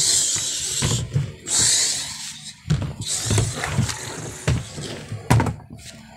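A child's mouth-made explosion noises, three hissing "kshh" bursts in the first four seconds, over dull thumps from plush toys being knocked about and the phone being handled. A sharp knock comes about five seconds in.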